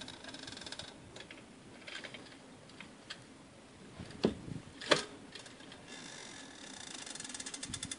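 Car jack being lowered a little at a time: rapid mechanical ticking in the first second and again building over the last two seconds, with two sharp knocks about four and five seconds in.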